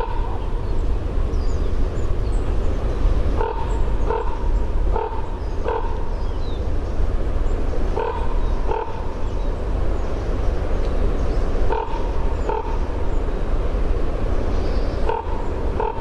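Common raven calling: short, deep croaks, mostly in pairs a little over half a second apart, repeated every few seconds over a steady low background rumble.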